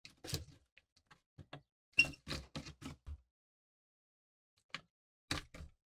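Restored plier-type saw tooth setter being handled: irregular sharp metal clicks and clacks from its moving parts, in short clusters. The loudest comes about two seconds in, with a brief metallic ping.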